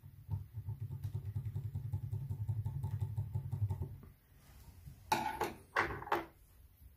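Brass key blank being wiggled back and forth in the keyway of a Master 6271 puck lock with a flat file for grip, a fast metallic rattle, done to make the pins mark the inked blank for impressioning a key. The rattle stops about four seconds in, and a few louder short scraping clatters follow a second later.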